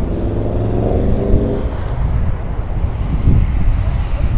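Road traffic: a motor vehicle's engine, its pitch rising a little over the first second and a half, over a steady low rumble.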